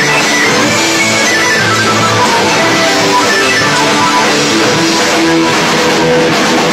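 Rock band playing, with electric guitar to the fore over bass, drums and keyboard.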